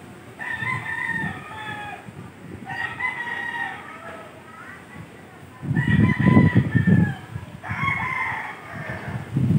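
A rooster crows four times, each crow about a second and a half long, with gusty typhoon wind buffeting the microphone. The wind rumble grows loud about six seconds in and again at the end.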